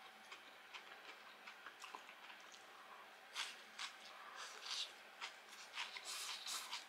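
Quiet, crisp crunching of a breaded, deep-fried white fish fillet being chewed, with faint clicks at first and short crunches from about three and a half seconds in, bunching up near the end.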